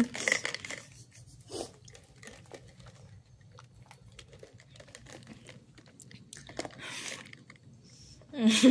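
Scattered faint clicks and crunchy rustling, irregular and small, with a short burst of a person's voice near the end.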